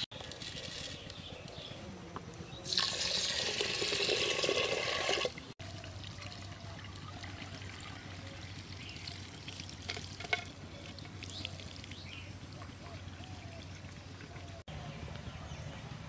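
Water poured and sloshing in an unglazed clay pot as rice is rinsed, loud for about two and a half seconds, then a quieter stretch as the rinse water is drained off the rice.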